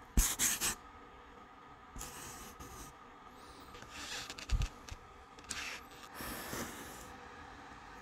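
Handling noise from a handheld phone: a string of short rubbing and scraping sounds as it is moved and turned, the loudest just after the start, with a dull thump a little past halfway.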